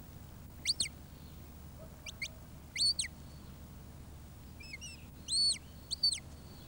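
Shepherd's whistle commands to a working sheepdog: about five short, clear whistles, some sliding up, holding and dropping back in pitch, with a faint rising trill between them.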